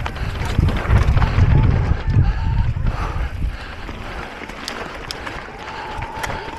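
Onboard sound of an eBike on a downhill race run: wind buffeting the microphone, heaviest in the first couple of seconds, with sharp clicks and knocks of the bike rattling over rough ground. Near the end a steady high whine sets in.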